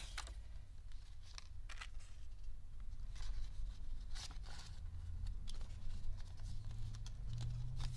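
Paper banknotes rustling as they are picked up and counted by hand: a handful of short crisp rustles over a low steady hum.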